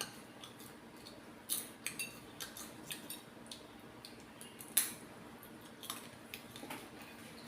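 Popcorn being handled and eaten: a scatter of light crackling clicks, about a dozen, the sharpest about five seconds in.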